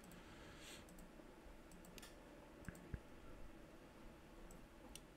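Faint computer mouse clicks, a handful of single clicks at irregular intervals, as path nodes are placed with the Bezier tool over near silence.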